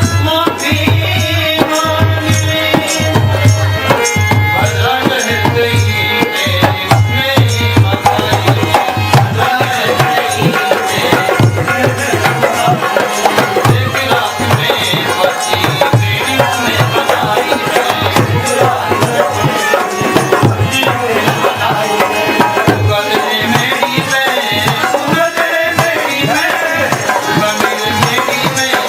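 Devotional bhajan music: tabla and drum keeping a steady, fast rhythm under a melody.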